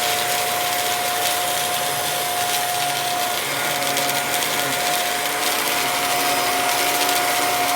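Hoover WindTunnel3 UH72511 upright vacuum cleaner running steadily, a constant whine over its motor and airflow noise. It is snow plowing, pushing the test debris ahead of it instead of picking it up.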